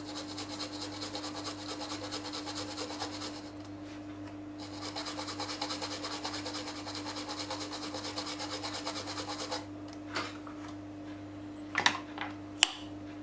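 Cotton swab scrubbing rapidly back and forth on a tablet's circuit board, wiping alcohol over an area of liquid damage, in two spells of several seconds with a short pause between. A few light clicks near the end, over a steady low hum.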